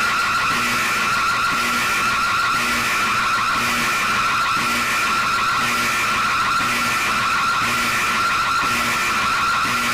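Emergency alert broadcast alarm: a steady high tone with a fast flutter, over a short low pulse repeating about once a second.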